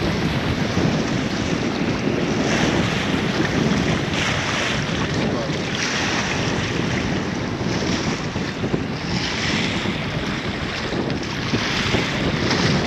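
Strong wind buffeting the microphone over waves breaking and splashing against rocks, the wash swelling every couple of seconds.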